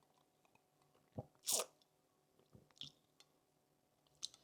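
A person taking a sip of a drink: a low knock about a second in, then one short slurp, followed by a few faint mouth clicks.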